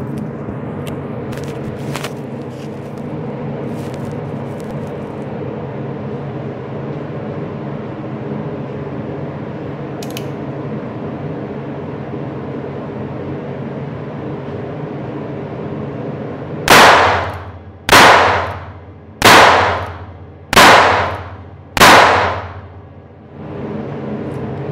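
Five shots from a North American Arms .22 mini revolver, fired about a second and a quarter apart late on, each ringing off the walls of an indoor range booth, over a steady background hum.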